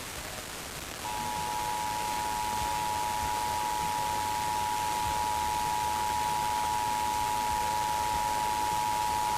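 Emergency Alert System two-tone attention signal, two steady tones sounding together, starts about a second in and holds for about eight seconds over a steady hiss.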